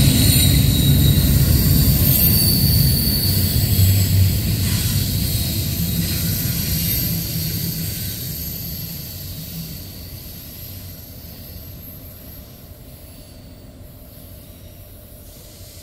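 Intermodal container freight train rolling past and receding. The low rumble of its wheels on the rails fades steadily away, with a faint high wheel squeal in the first few seconds.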